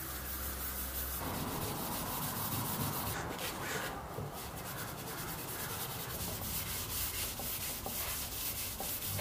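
A pad rubbing paste wax into the surface of a hardwood serving tray: a steady scrubbing of quick back-and-forth strokes. A low hum stops about a second in.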